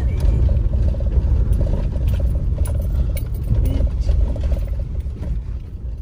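Car heard from inside the cabin while driving up a rough, patched road: a heavy low rumble of engine and tyres, a steady hum and scattered light clicks and rattles.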